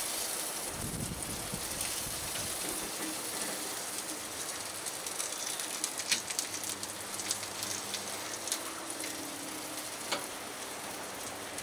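Beef roast sizzling and crackling on a gas barbecue's rotisserie spit, a steady hiss, with a few sharp clicks in the second half.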